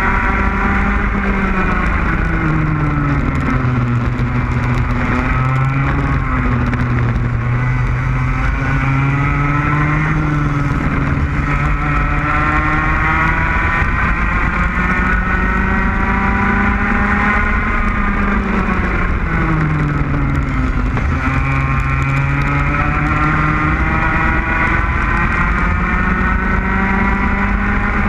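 Racing kart engine at speed, heard from onboard. Its pitch drops as the kart slows for corners and climbs again on the straights, several times over, with a steady low wind rumble on the microphone.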